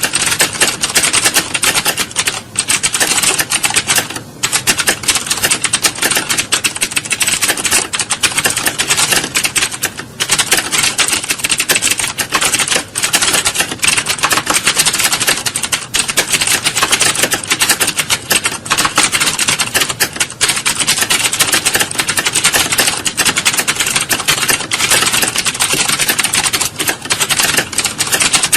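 Computer keyboards being typed on fast and without pause, the keystrokes running together into a dense, continuous clatter, like a hall of candidates sitting a typing test.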